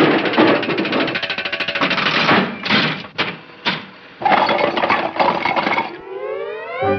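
Rapid, loud rattling and clattering added as a comic fight sound effect. It runs for a couple of seconds, breaks into three short bursts, then runs again, and a rising slide glide starts near the end.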